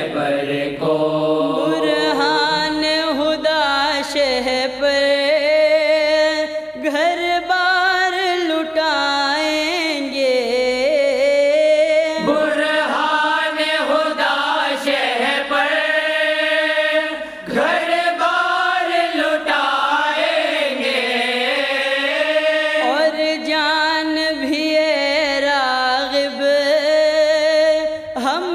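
A voice singing an Urdu devotional song in long, drawn-out melismatic notes that bend and glide in pitch, with no clear words, like a sung interlude between verses. Brief breaths or dips come about 7 and 17 seconds in.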